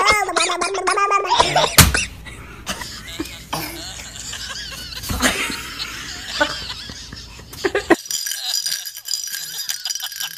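A person laughing for about a second and a half, then a sharp knock just before two seconds in and quieter mixed sounds. About eight seconds in the sound changes abruptly to steady high tones.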